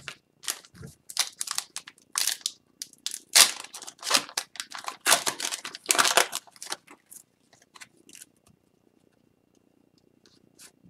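Crinkling and tearing of an Upper Deck hockey card pack wrapper being opened and the cards handled, a quick run of rustling crackles that stops about eight seconds in.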